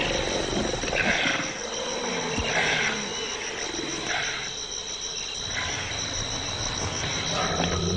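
Night bush ambience: insects trilling steadily, with a short call repeating about every second and a half.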